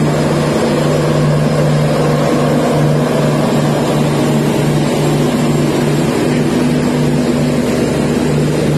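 Diesel engines of an Indian Railways Humsafar Express train running with a steady low hum.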